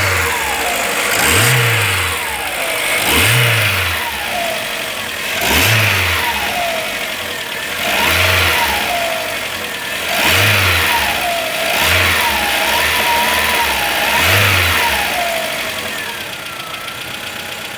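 Volkswagen Voyage 1.6 engine blipped lightly from idle over and over, about every two seconds, dropping back between revs and settling to idle near the end. Only a small tick from the top of the engine, which the mechanic calls normal and characteristic once oil pressure is back after the oil change.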